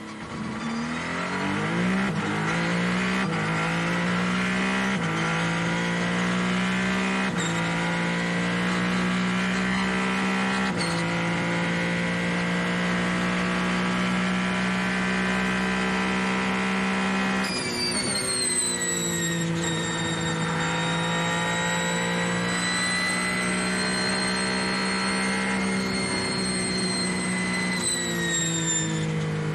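Onboard sound of the Ferrari 499P Hypercar's 3.0-litre twin-turbo V6 accelerating hard through a string of upshifts, each a step in pitch, then held at high revs at full throttle. About two-thirds of the way in, a high-pitched whine joins the engine, and near the end the revs drop as the car lifts and shifts down.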